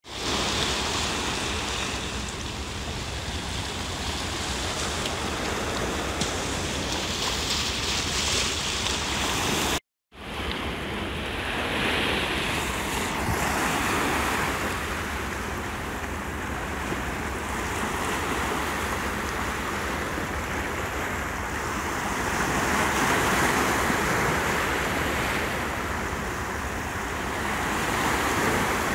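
Small sea waves breaking and washing over shoreline rocks, swelling and easing with each wave, with wind on the microphone. The sound cuts out completely for a moment about ten seconds in.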